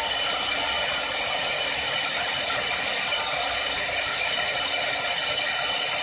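4-axis CNC woodworking lathe running and cutting wood: a steady hiss with faint steady whining tones from the motors and spindle.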